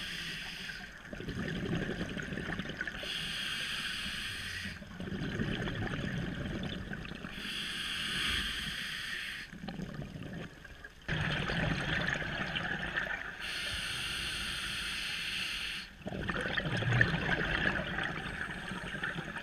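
Scuba diver breathing through an open-circuit regulator underwater: each inhale is a hiss through the demand valve, each exhale a low bubbling rumble of escaping air. The two alternate evenly, every two seconds or so, over several slow breaths.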